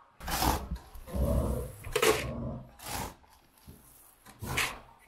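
Horse feed pellets scooped from a bin and poured into a plastic bucket, in four short bursts, with a low rumble about a second in.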